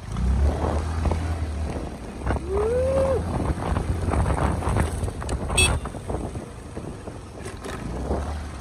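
Yamaha scooter's single-cylinder engine running as it is ridden along a rough road, coming up sharply as the throttle opens at the start, with wind and road noise. A short rising tone sounds about two and a half seconds in, and a brief sharp high sound about five and a half seconds in.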